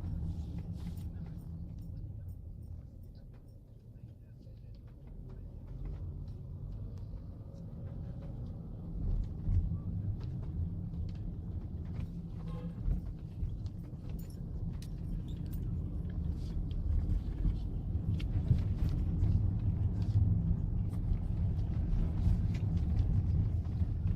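Heavy rain on a waterproof phone: scattered sharp ticks of drops hitting it, over a low rumble of traffic that grows louder in the second half.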